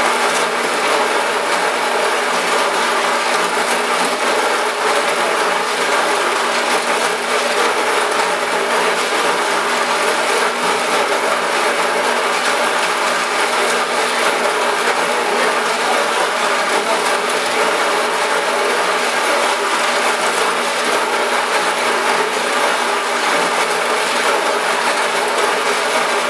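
Loose 46-grit silicon carbide grinding between a rotating glass meniscus blank and a stationary metal ring trepanning tool, weighted from above: a steady gritty grinding that runs on without a break.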